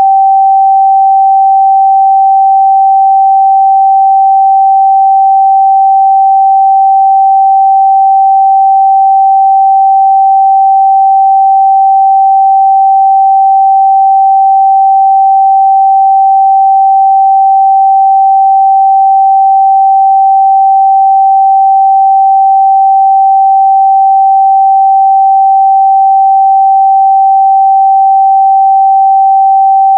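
A steady, loud 777 Hz sine-wave test tone: one pure, unchanging pitch held without a break.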